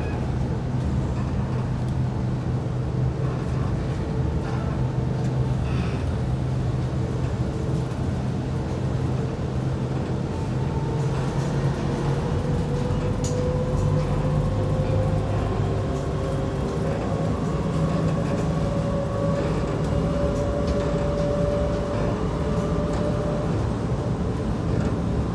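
Interior ride noise of an Adtranz C801 rubber-tyred light-rail car on the move: a steady rumble with a motor whine. The whine rises in pitch from about ten seconds in, then levels off, as the train gathers speed.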